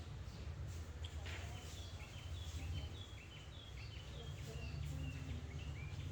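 A bird calling a quick series of short chirps, about three a second, that step down in pitch over a few seconds, over a steady low rumble.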